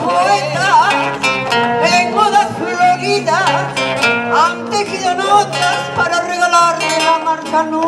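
Live Peruvian música criolla band playing: acoustic guitar carrying the melody over electric bass and bongos.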